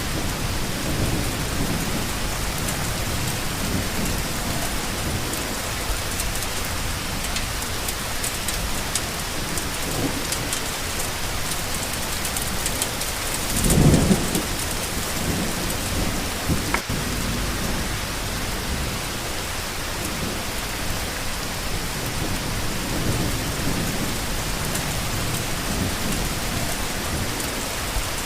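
Steady rain falling, with a short burst of thunder rumbling about halfway through.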